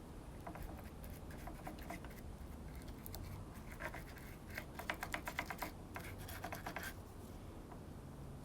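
Faint scratching and small clicks of hand work on chainsaw parts, with quick runs of rapid clicking in the middle, over a low steady hum.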